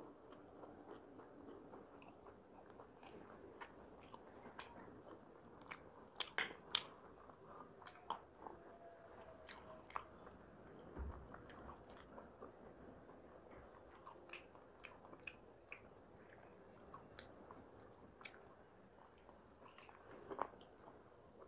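Close-miked chewing of food with the mouth closed: quiet wet chewing sounds broken by many small sharp clicks. The clicks are loudest about six seconds in and again near the end, and there is a soft low thump about halfway.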